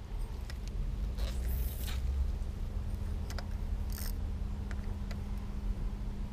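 Handling noises from a spinning rod and reel: a brief swish about a second and a half in, a sharp hiss about four seconds in, and a few small clicks, over a low wind rumble on the microphone and a faint steady hum.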